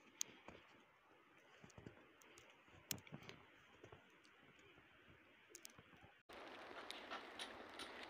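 Near silence broken by faint, scattered sharp clicks and ticks. About six seconds in, the sound cuts abruptly to a louder steady hiss, with clicks still scattered through it.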